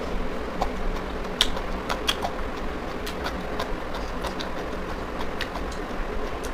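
Close-up chewing and crunching of raw cabbage salad eaten with rice: irregular sharp crunches and mouth clicks, several a second, over a steady background hum.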